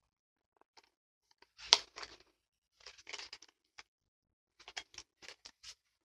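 A plastic sports water bottle handled and turned in the hand: scattered clicks, scrapes and rustles, with one sharp, loud click a little under two seconds in.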